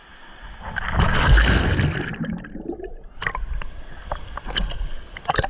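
Creek water splashing and sloshing right against a waterproof action camera at the water's surface, muffled for a moment about two seconds in as the camera dips under, then a run of sharp splashes and drips on the housing.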